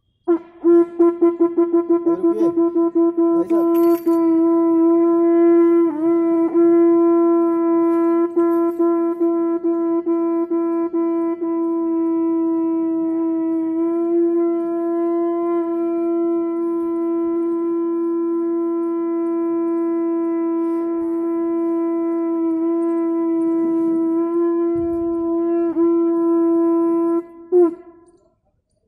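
A conch shell (shankh) blown in one long held note, with a rapid fluttering start for the first few seconds. The note then holds steady for nearly half a minute and cuts off near the end.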